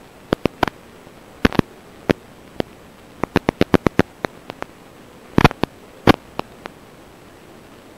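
Steady hiss of static from an FPV drone's analog video link, broken by irregular sharp clicks and crackles. The clicks come in a quick run about three to four seconds in and in another pair of bursts around five and a half to six seconds.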